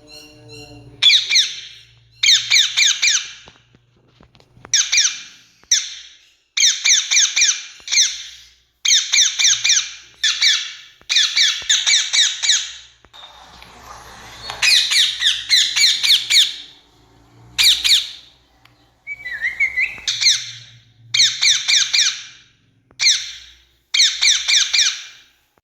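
Rose-ringed (Indian ringneck) parakeet calling: loud, shrill screeching calls given in quick runs of notes, burst after burst with short pauses between.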